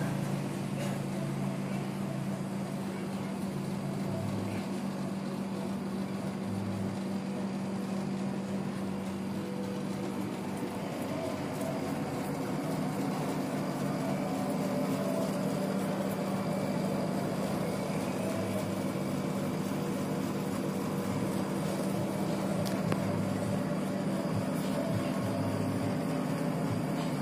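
A steady low hum runs throughout over a background of noise, with no distinct events.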